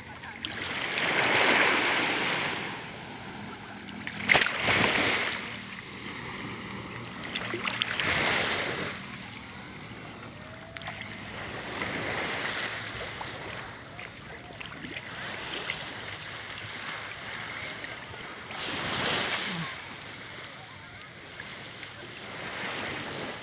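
Sea water splashing and washing close by, rising in swells every few seconds. Two runs of sharp clicks, about two a second, come in the second half.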